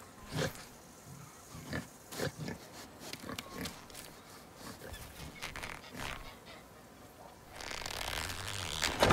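Cartoon pig grunting in short, separate bursts as it noses at the ground. Near the end a steady noise swells in.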